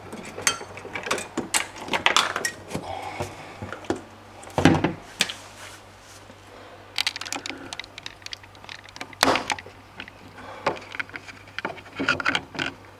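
Hands working a fridge's aluminium evaporator coil back onto its mounting lugs: scattered clicks, knocks and scrapes of metal against the plastic liner, with two louder knocks about five and nine seconds in.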